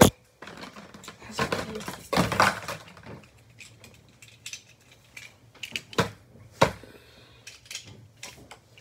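Handling noise close to the microphone: clicks, knocks and clattering of hard objects, with rustling scrapes about one to three seconds in and a few sharper clicks near the end.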